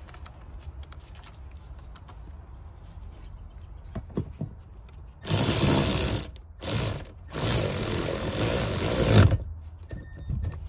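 Cordless ratchet running in three bursts, a longer one, a short one, then about two seconds, as it drives in the 10 mm bolt that holds the rear seat bottom cushion down. Faint clicks of the bolt being set come before the first burst.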